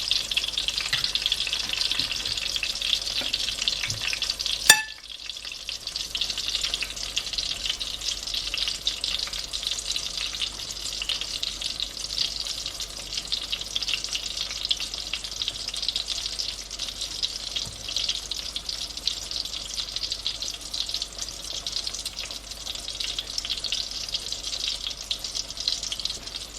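Oil sizzling and crackling steadily around an eggplant omelette frying in a pan on medium heat. A single sharp click about five seconds in, after which the sizzle is a little quieter.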